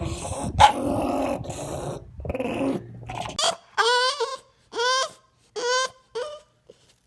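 A dog growling and grumbling, then, after a sudden change of background, giving a string of short, wavering whining howls, each about half a second long.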